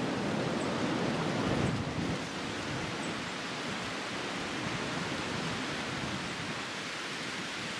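Steady wind rushing through bare woods: an even hiss with no distinct events.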